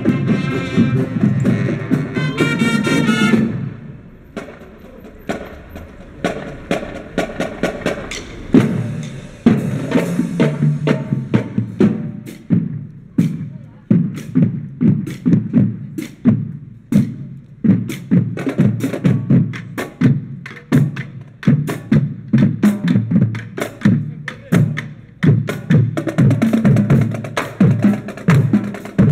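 Marching band playing a wind-and-brass tune that stops about three and a half seconds in, then its drum section keeps up a marching cadence of snare and bass drum strokes.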